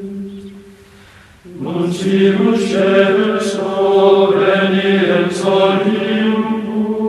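Soundtrack music of sustained chanted, choir-like voices holding a low chord. It fades away about a second in, then comes back strongly at about a second and a half, with a few short hissy accents.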